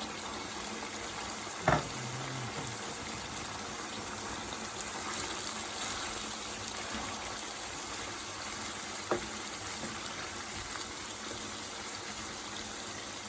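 Chicken karahi cooking in a pan of oil and water with tomatoes and onion, a steady sizzling and bubbling. Two sharp knocks cut in, about two seconds in and about nine seconds in.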